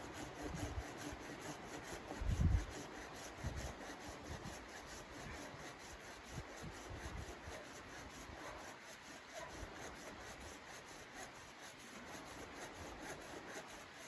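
Folding hand saw cutting through a wooden branch in steady, even back-and-forth strokes. A short low thump about two and a half seconds in.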